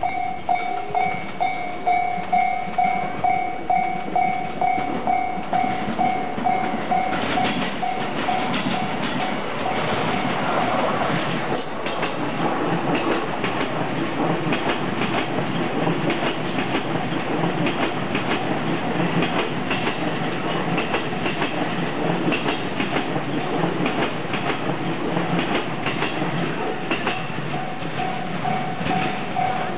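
Japanese level-crossing warning bell ringing in an even, repeating beat. From about seven seconds in, a train rolls past with loud wheel clatter over the rails and covers the bell, which is heard again near the end.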